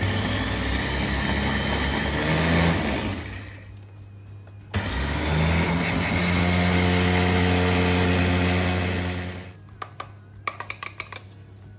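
Girmi electric mini chopper running as it purées tuna and capers into a creamy sauce base, in two runs: about three and a half seconds, a short pause, then about five seconds before the motor cuts off. A few light clicks follow near the end.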